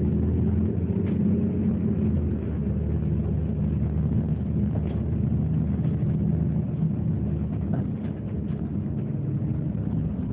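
Mitsubishi Fuso Aero Star (QKG-MP38FK) city bus's diesel engine running with a steady low drone, heard from inside the passenger cabin. It eases off slightly about eight seconds in.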